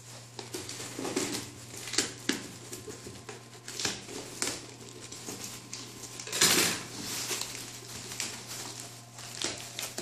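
Scissors snipping and scraping at packing tape on a cardboard box, then rustling and scraping of cardboard as the box flaps are pulled open, with a longer, louder burst of cardboard noise about six and a half seconds in. A low steady hum runs underneath.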